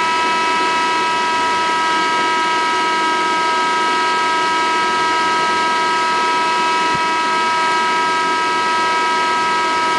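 Steady, loud electronic test tone, two high pitches sounding together without change, played through the LL Professional 2600 power amplifier as it is run for a heat test.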